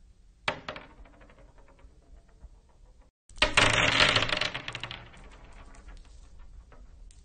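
Glass marbles dropping onto a wooden floor. About half a second in, one strikes and bounces with quick, fading clicks; a little after three seconds a louder drop sets off a dense clatter of many clicks that thins out over about two seconds as the marbles bounce and roll to rest.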